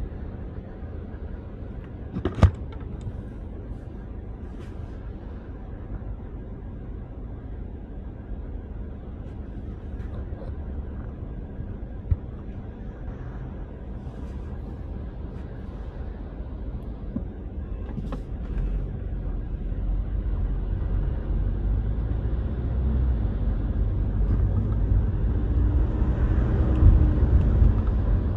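Car on the move: a steady low rumble of engine and road noise that grows louder over the last third, as if picking up speed. A sharp click a couple of seconds in.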